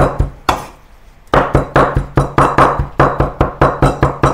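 Chinese cleaver mincing raw chicken thigh meat on a wooden chopping board: fast, even chops at about five a second, with a brief pause about half a second in before the chopping starts again.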